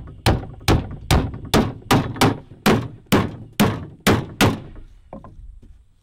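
Hammer driving nails into the wooden boards of a box trap: about a dozen sharp blows, a little over two a second, then two light taps about a second later.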